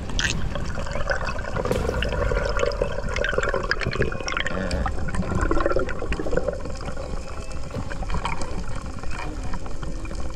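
Underwater sound picked up by a submerged camera: a steady low rumble of moving water, with gurgling and bubbling that swells through the middle and small scattered clicks.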